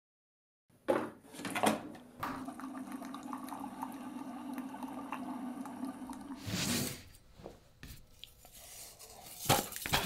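Keurig K140 single-serve pod coffee brewer brewing: two sharp clicks about a second in, then a steady pump hum with coffee running into a mug for about four seconds, ending in a short hiss of air. A couple of knocks near the end.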